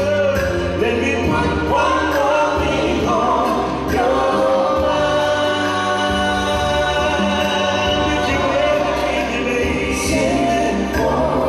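Live soul music from a band on stage: a male singer on a microphone with harmonising backing voices, held keyboard chords and a steady bass line.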